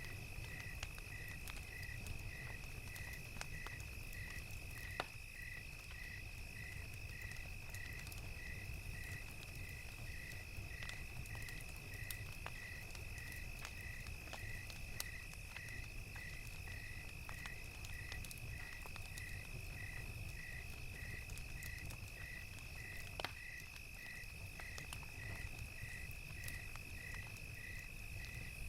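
Crickets: one steady high trill, and a second, slower chirp repeating about one and a half times a second. Underneath runs the low rumble of a crackling fire with sparse small pops, one sharper pop about five seconds in and another about twenty-three seconds in.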